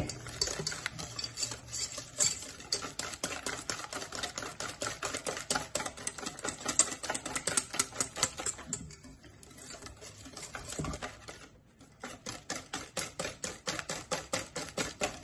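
Wire whisk beating eggs with sugar and spices in a stainless steel mixing bowl, the wires clicking rapidly and evenly against the metal, several strokes a second. There is a brief lull about nine seconds in before the beating picks up again.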